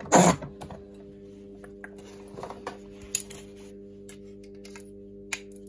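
Handling clunks and clicks of a Redington Run fly reel being taken off a line winder and its spool pulled out of the frame: one loud clunk right at the start, then a few light clicks, over a steady low hum.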